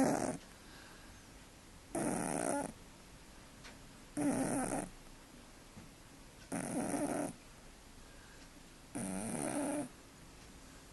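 Domestic cat snoring loudly: four snores in a slow, even rhythm, one about every two and a half seconds, each lasting under a second.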